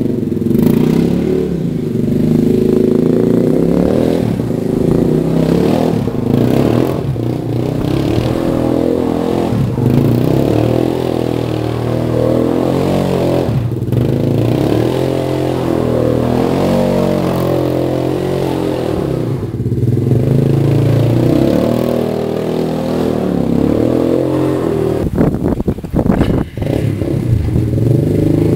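Suzuki LT-Z250 quad's four-stroke single-cylinder engine revving up and down over and over as it is ridden and drifted on snow, its pitch rising and falling.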